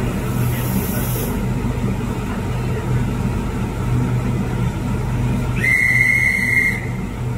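A vehicle's engine running steadily with a low hum. Near the end, a single steady high-pitched tone sounds for about a second.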